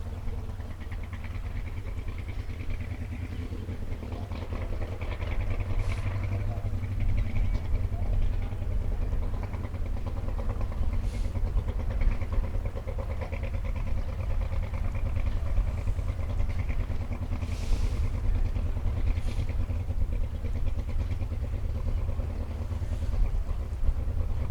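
Engine of a Willys CJ5 off-road competition Jeep, running and revving in a steady drone, with a few short sharp clicks or knocks.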